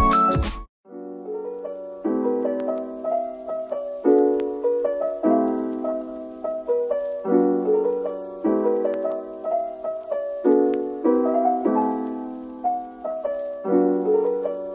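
Background piano music: a gentle piece of sustained chords, a new chord struck about once a second. The tail of a louder intro jingle cuts off less than a second in, and the piano begins after a brief pause.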